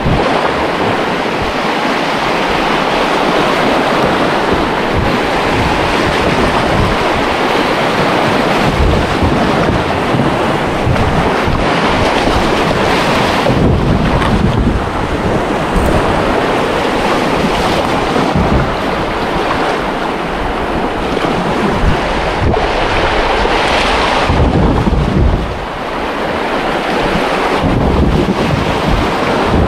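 Rushing river water, a steady loud wash that swells now and then, with wind buffeting the microphone.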